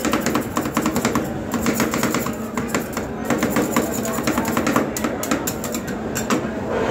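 Two metal spatulas rapidly chopping and clattering on the steel freezer plate of a rolled ice cream counter, in quick runs of taps with short pauses. Music plays underneath.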